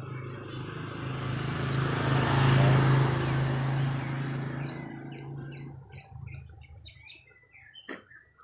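A motor vehicle's engine grows louder over about two seconds, then fades away over the next three as it passes by. Small birds then chirp, and there is a sharp click near the end.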